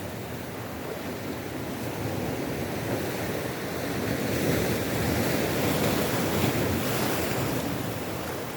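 South Atlantic surf breaking on a rocky shore, the wash swelling about halfway through and easing off near the end, with wind buffeting the microphone.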